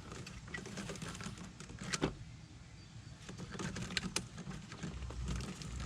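Hands working a plastic vacuum line tube through a tight spot: light rustling and scraping with scattered sharp clicks, the clearest about two seconds in and a quick pair about four seconds in.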